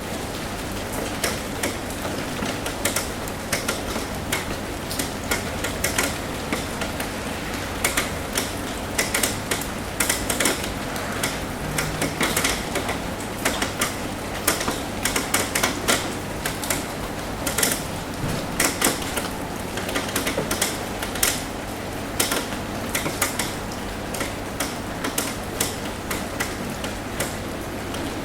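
Rain on a roof: a steady hiss of rainfall with many irregular, sharp drop taps.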